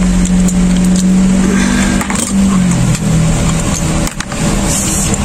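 A motor running steadily with a low hum that drops in pitch about three seconds in, with a few sharp clicks about four seconds in.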